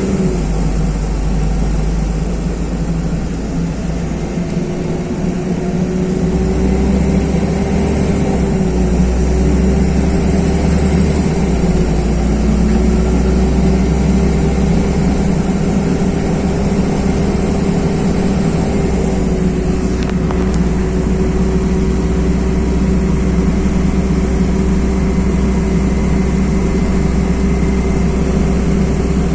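LiAZ-5292 city bus under way, heard from inside the cabin: a steady engine drone that rises and falls gently over road rumble, with a faint high whine that comes and goes. A single short click about twenty seconds in.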